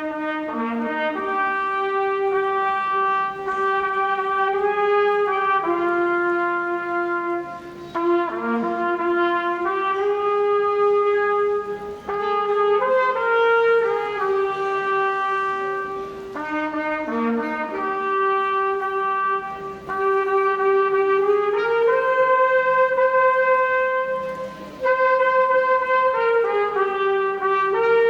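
Instrumental music: a melody in phrases of long held notes, played on brass instruments.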